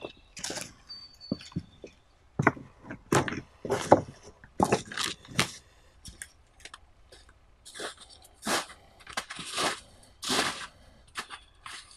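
Footsteps crunching through patchy snow and forest-floor litter, irregular steps about one or two a second.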